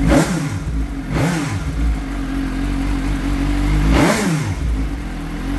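2023 Suzuki GSX-S750's inline-four idling through its stock factory exhaust, real quiet, blipped three times: twice about a second apart at the start and once more about four seconds in, each rev rising and dropping back to idle.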